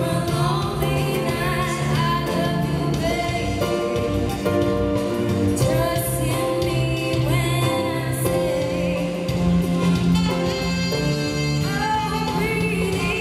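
A live band playing, with a woman singing lead into a microphone.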